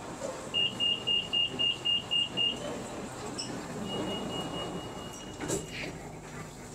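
Metro train door-closing warning: about eight quick high beeps, then a steady high tone while the doors slide shut, ending in a knock as they close about five and a half seconds in.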